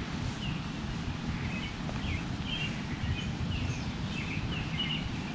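Songbirds chirping in a quick string of short high notes over a steady low outdoor rumble.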